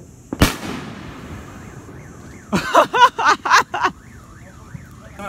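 A firework bang about half a second in, followed by a car alarm cycling through its tones: a loud burst of warbling pitched blasts, then a tone sweeping up and down several times a second.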